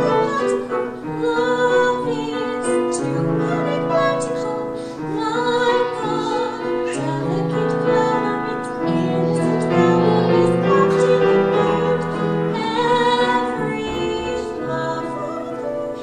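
A female classical singer sings an operatic line with piano accompaniment, holding long notes with vibrato.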